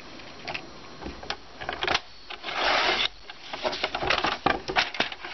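Paper trimmer's sliding blade drawn once along a sheet of thin printer paper, a rasping cut of under a second about halfway through, among light clicks and taps of paper being handled on the trimmer.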